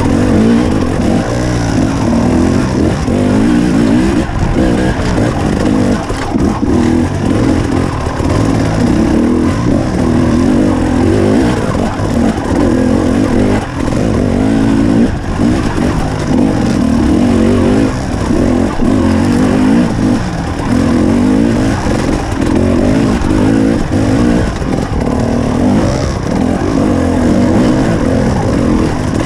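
KTM 300 XC two-stroke enduro engine heard from on the bike, its revs rising and falling continually as it is ridden along rough single track, with a few short knocks from the bike over the ground.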